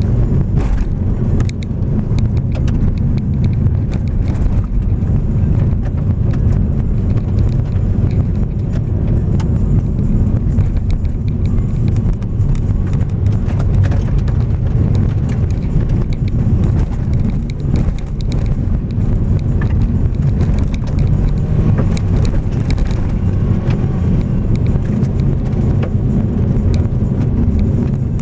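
Car driving along a gravel road: steady low engine and tyre rumble, with many small clicks from gravel crunching and flicking up under the car.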